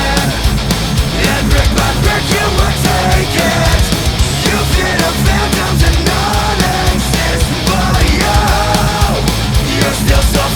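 Loud heavy rock music with a steady driving beat and a melodic vocal or lead line over dense distorted instruments.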